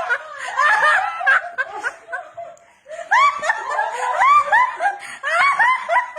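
A person laughing in repeated high-pitched bursts, with a short lull about two and a half seconds in before the laughter picks up again.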